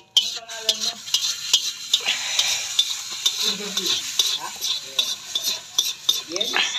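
A metal spoon scraping and clicking against a steel wok as scrambled eggs are stirred, with the eggs sizzling in hot oil. The sizzle fills in more steadily about two seconds in.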